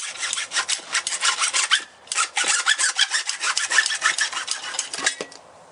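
Hacksaw cutting through 1½-inch PVC pipe in quick back-and-forth strokes, with a short break about two seconds in. The strokes stop shortly before the end.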